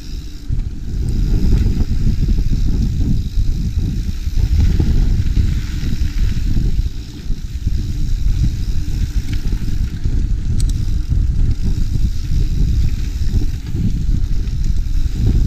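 Wind buffeting a GoPro's microphone as a mountain bike rides along a dirt trail, a steady low rumble, with one short click about ten seconds in.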